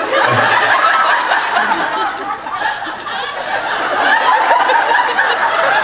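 A large audience laughing loudly and continuously, many voices at once.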